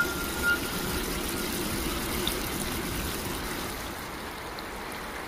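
Stream water running steadily, a continuous rushing noise.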